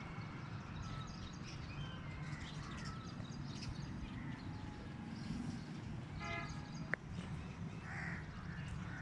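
Birds chirping and calling, with one louder, harsher call about six seconds in and a sharp click just after it, over a steady low background rumble.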